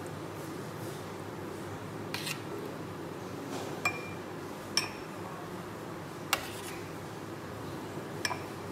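A metal spoon clinking against a glass jar as thick jam is scooped and scraped into it: about five separate clinks, a couple with a short ring.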